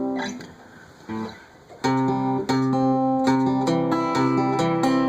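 Acoustic guitar fingerpicked in a Travis-picking pattern: a ringing chord is damped near the start, and after a short pause with a single note, picked notes over a bass line start again about two seconds in.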